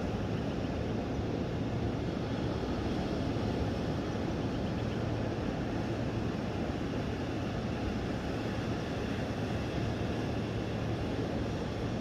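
Steady low rumbling noise with a constant low hum underneath, unchanging throughout.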